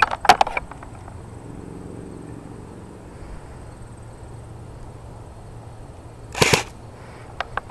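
Cybergun Thompson M1A1 airsoft gun firing: a quick cluster of sharp pops at the start, a short burst about six and a half seconds in, and two single pops near the end.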